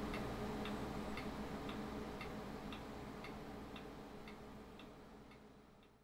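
Steady ticking, about two ticks a second, over a low hum, fading out near the end.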